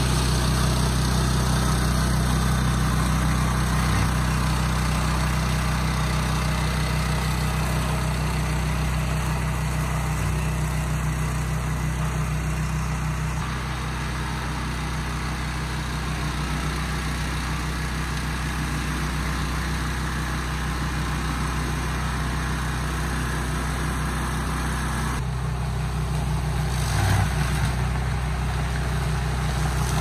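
Orec HRC663 tracked hammer-knife brush cutter's four-stroke engine running steadily as the machine is driven through scrub. The engine gets a little quieter about halfway through and picks up again near the end.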